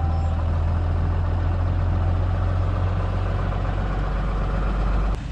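Pickup truck engine idling steadily with a low, even rumble, which cuts off suddenly near the end.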